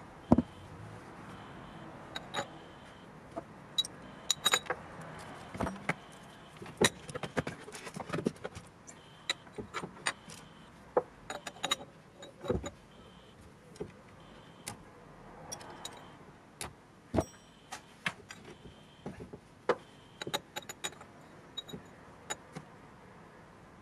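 Irregular clicks, taps and light clinks of hand work on a boot-lid hydraulic pump unit, metal and plastic parts knocking as the pump is lifted and turned and a clear cup is handled against it.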